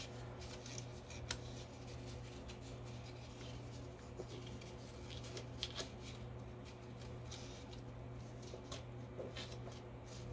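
Faint rustling and light ticks of paper strips being handled and pushed together in a paper weave, a sharper tick a little over a second in, over a steady low hum.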